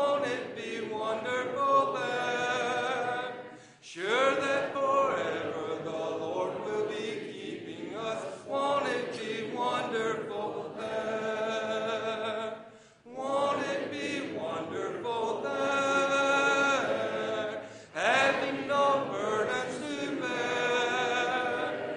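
Church congregation singing a hymn a cappella, men's and women's voices together, in long phrases with short breaks between lines.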